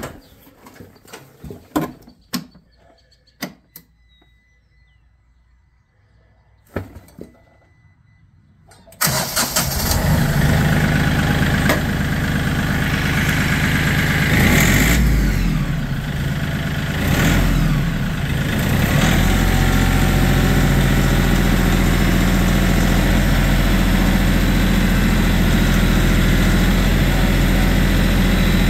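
Scattered clicks and knocks from the tractor's controls, then about nine seconds in the Kioti CK3510's three-cylinder diesel engine starts. Its sound rises and falls for several seconds, then settles into a steady idle.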